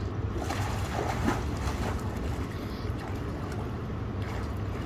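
Swimming-pool water splashing and lapping, most of it in the first two seconds, over a steady low rumble.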